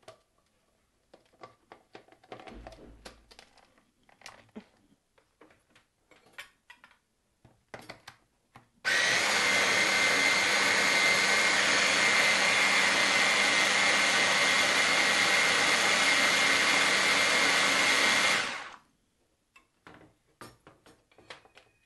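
Electric mini food chopper blending zucchini pesto. After several light plastic clicks and knocks, its motor starts abruptly about nine seconds in, runs steadily for about ten seconds, then winds down.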